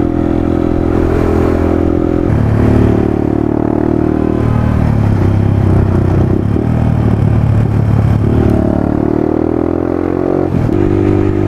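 The rider's own motorcycle engine running, heard over wind rush on the helmet microphone. The engine note steps down about two seconds in, climbs steadily as the bike accelerates near the end, then drops sharply.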